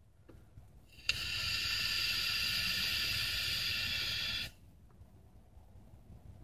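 A vape draw on a Kanger Subtank atomizer with a nickel (Ni200) coil: a steady hiss of air and the firing coil for about three and a half seconds, starting about a second in and cutting off suddenly.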